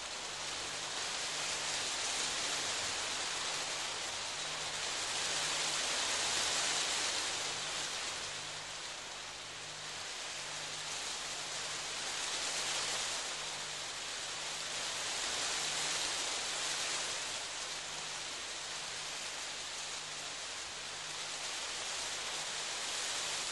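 Steady rain hiss that swells and eases every few seconds, with a faint low pulse repeating about once a second underneath.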